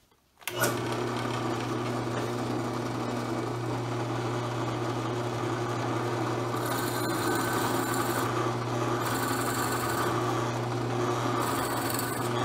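Drill press starting up about half a second in and running steadily, its twist bit boring into a wooden pen blank held in a drilling vise. Three spells of sharper cutting hiss come in the second half as the bit is fed into the wood.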